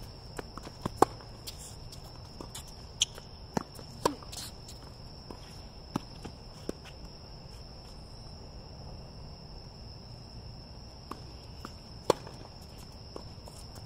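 Tennis rally on a hard court: several sharp racket-on-ball strikes and shoe scuffs in the first seven seconds, then a lull with one more sharp hit near the end. A steady high chirring of insects runs underneath.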